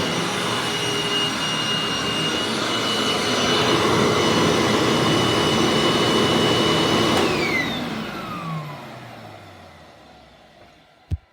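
Hoover WindTunnel Anniversary Edition bagged upright vacuum with a 12-amp motor running steadily with a high whine. About seven seconds in it is switched off, and the motor winds down with a falling whine that fades out over a few seconds. A sharp click comes right at the end.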